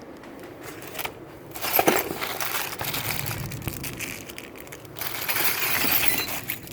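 Packaging crinkling and rustling as boxes and bags of jewelry are handled, in two spells, the second starting about five seconds in.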